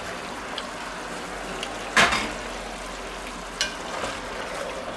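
Stew sizzling in a cast-iron Dutch oven while a wooden spoon stirs it. There is one sharp knock about two seconds in and a few lighter clicks.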